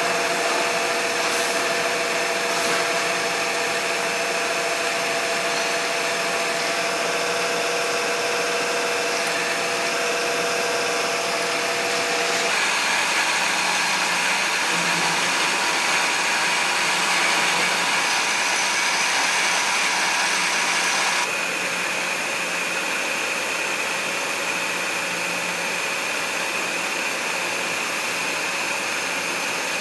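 Hwacheon 6-inch chucker turning center cutting an aluminium (AL 6061) part with live rotary tools: steady whining tool-spindle tones over a constant machining hiss. The tones and mix change abruptly about twelve seconds in and again about nine seconds later as the operation changes, from face drilling to outer-diameter finishing and then face chamfering.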